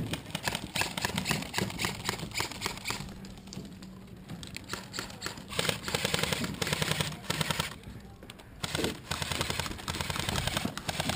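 Airsoft rifles firing rapid full-auto bursts: a fast rattle of shots in three long runs, broken by short lulls about three seconds in and just before eight seconds.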